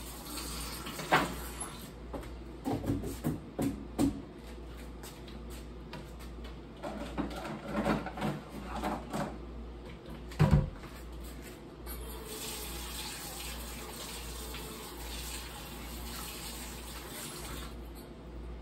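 Kitchen tap running into the sink while dishes are washed by hand, with clinks and knocks of crockery. A louder knock comes about halfway through as a bowl is put away in a wall cabinet, and the running water thins near the end.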